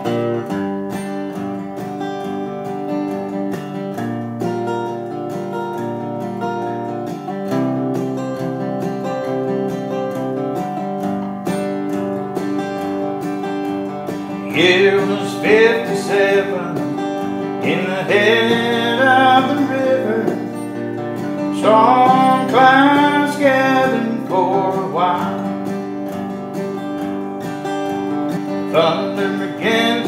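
Acoustic guitar strummed in a slow country ballad intro. About halfway through, a second melody line with sliding pitch comes in and out over it.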